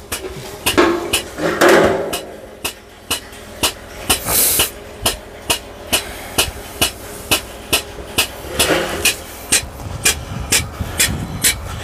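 Air-operated diaphragm pump running slowly, clacking at about two to three strokes a second, with a puff of exhaust-air hiss, while it pumps waste diesel with a little oil in it. The slow pace is put down to the small compressor, which supplies only about 6 CFM at around 55 PSI.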